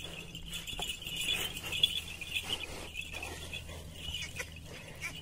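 A pair of bullocks pulling a tined seed drill through soft tilled soil, with soft scuffs and clicks of hooves and tines, over a steady high chirring.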